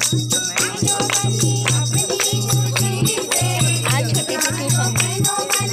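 A group of women singing a folk song to a two-headed hand drum (dholak) beat, with hand claps keeping the rhythm.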